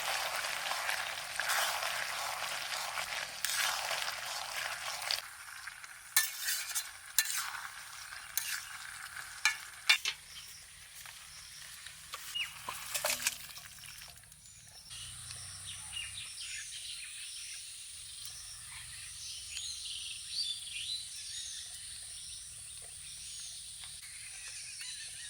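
Curry sizzling in a pan while it is stirred, with the scrape of the spoon against the pan. After about five seconds the sizzle drops away and only occasional scrapes and clicks remain. About fifteen seconds in, a steady high insect drone and bird chirps take over.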